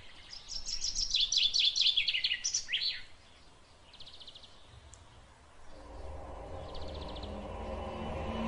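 A wild bird sings a fast run of quick, high, downward-sweeping notes for the first three seconds, followed by a short buzzy trill about four seconds in and again about seven seconds in.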